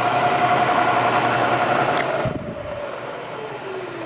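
Bridgeport Series 1 2 hp milling machine's spindle motor and variable-speed head running with a steady whine. A click about two seconds in, then the motor is switched off and coasts down, its whine falling steadily in pitch.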